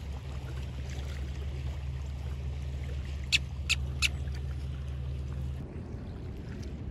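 A bird gives three short, sharp calls in quick succession about halfway through, over a steady low rumble that stops about two-thirds of the way in.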